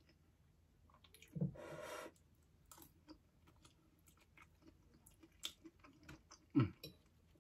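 Close-up chewing of spicy instant noodles: many small wet mouth clicks and smacks, with a longer noisy burst about a second and a half in and a louder short sound near the end.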